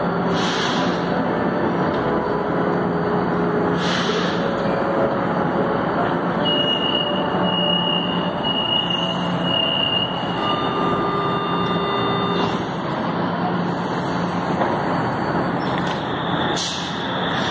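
Electric commuter trains at a station platform: a steady rumble of train running noise and hum, with a thin, high wheel squeal for a few seconds around the middle.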